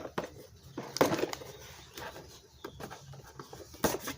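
Packaging and parts being handled during unboxing: light rustling with a few sharp knocks, one about a second in and another near the end.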